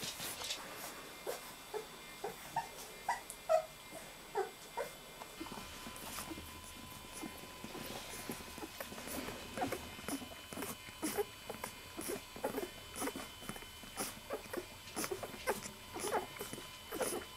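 Newborn miniature Labradoodle puppies suckling, with a few small high squeaks in the first few seconds and quick, irregular suckling clicks after that.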